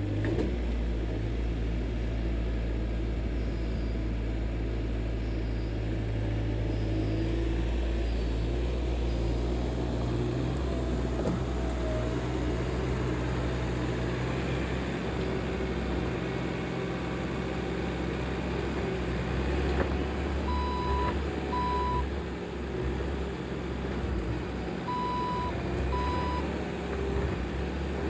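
Skid steer's diesel engine running, its low drone shifting in pitch as the load changes. About two-thirds of the way in, its backup alarm starts beeping as it reverses.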